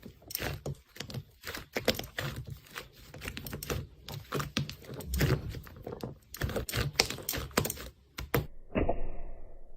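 Slime being worked, giving rapid, irregular crackling clicks and pops. Near the end the crackling stops and a duller, softer squish begins.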